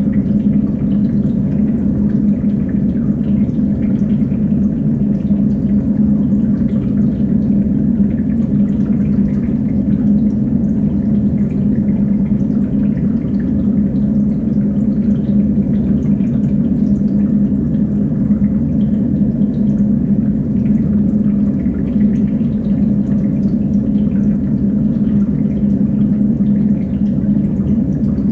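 Water circulating and bubbling through a multi-tier aquarium rack, a steady rushing with a constant low hum and faint scattered drips.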